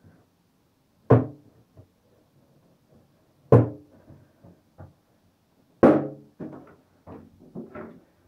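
Orange Halloween balloons bursting: three sharp bangs about two and a half seconds apart, each with a short ring, followed by several lighter knocks.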